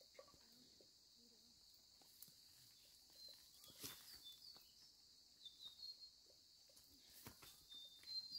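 Near silence: a faint steady high insect drone, with a few soft footsteps on a dirt path.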